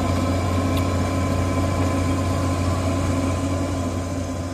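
Hitachi Zaxis 210-5G excavator's diesel engine running with a steady low hum, fading out near the end.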